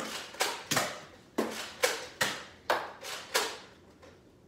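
A run of about eight sharp smacks or knocks, roughly two a second and irregularly spaced, each trailing off briefly; they stop about three and a half seconds in.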